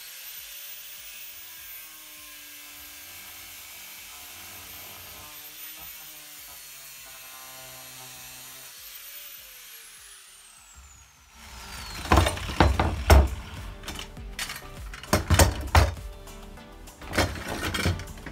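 Angle grinder spinning up with a steady high whine as it grinds through the metal ladder rail at its joint with the swim platform, then winding down with a falling whine about ten seconds in. A run of loud, sharp knocks follows as the cut rail is worked free.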